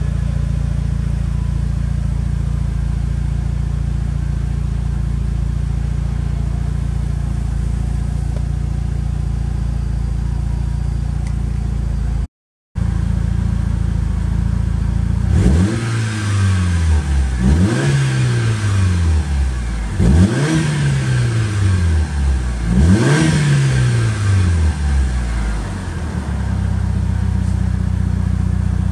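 Mitsubishi Lancer Evolution VIII MR's turbocharged 4G63 inline-four, a G-Force built complete engine, idling steadily, heard from inside the cabin. After a brief break in the sound it is revved four times, each rev rising and falling about two and a half seconds apart, then settles back to idle.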